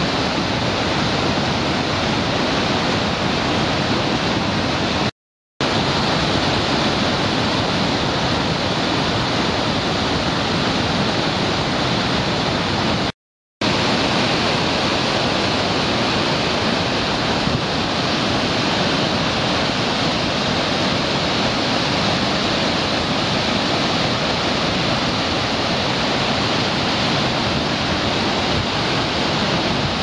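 Steady, loud rush of Sogi Falls, a 210 m-wide waterfall, and the white-water rapids below it. The sound cuts out to silence twice for a moment, about five and thirteen seconds in.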